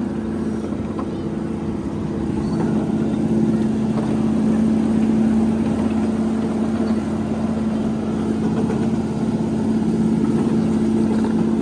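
Miniature ride-on train running along its track: a steady droning hum from its drive, which grows a little louder about two to three seconds in.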